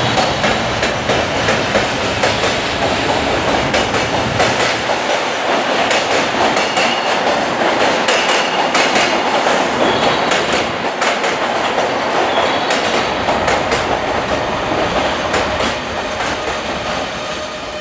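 A JR Freight container train rolling through the station. The wagons' wheels clack over rail joints above a steady rumble and rattle of the cars.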